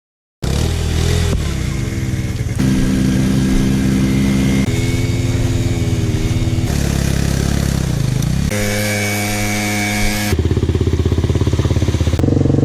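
Quad bike engine running and revving, starting after a moment of silence; its pitch jumps abruptly every second or two, with short dips and rises between.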